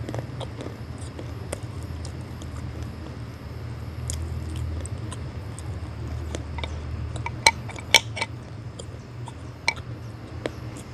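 Close-up chewing of multani mitti (Fuller's earth clay) and slate pencil, over a steady low hum. Fingers knock the ridged glass bowl with a few sharp ringing clinks, two of them close together about three-quarters of the way through.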